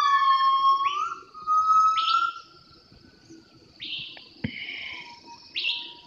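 Forest animal calls: a long, smoothly gliding howl holding near one pitch fades out about halfway through, over birds giving short rising chirps every second or two. A single sharp click comes a little past the middle.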